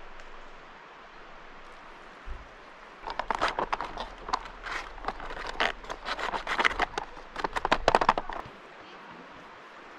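A dense run of rustling and crackling starts about three seconds in and stops about five seconds later, with faint background before and after.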